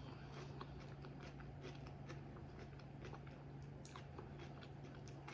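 Faint chewing of food: soft mouth clicks and smacks at irregular moments, over a low steady hum.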